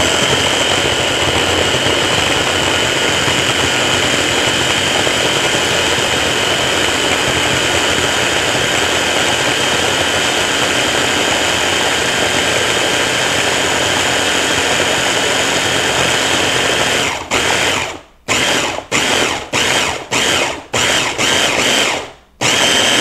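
Electric stick (immersion) blender driving its chopper-bowl attachment, running steadily with a high whine as it purées banana, cocoa and milk. Near the end it is switched on and off in several short pulses.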